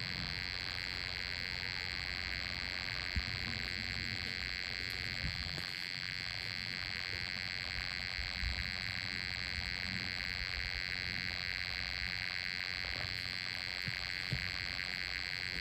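Steady, high-pitched night chorus of insects, continuous and unchanging, over the low rumble of a handheld phone being moved, with a few faint knocks.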